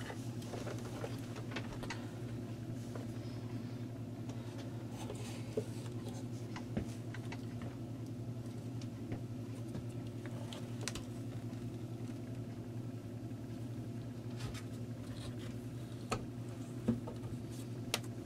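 Scattered small clicks, taps and rustles of cables, plastic and metal parts being handled as an audio unit's wiring and chassis are moved and its metal bottom plate is fitted. A steady low hum runs underneath.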